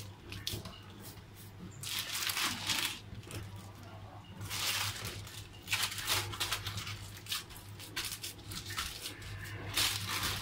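Thin plastic sheet crinkling and rustling in several bursts as it is wrapped tight around a roll of minced meat that is pressed and rolled by hand on a counter. A low steady hum runs underneath.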